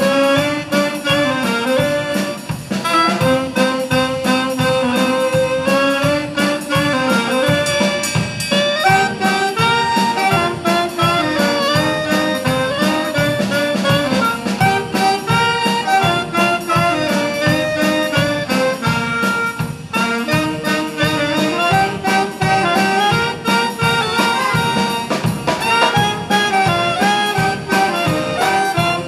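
Youth wind band playing live: saxophones and brass carry a moving melody over a drum kit keeping a steady beat.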